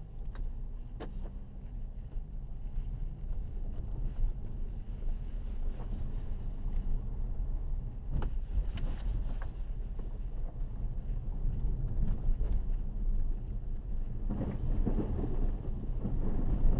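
Inside-the-cabin rumble of a Mercedes GLA 200 CDI 4Matic, its diesel engine and tyres, driving along a rough dirt track. A few sharp knocks come through, and there is a louder, rougher stretch near the end.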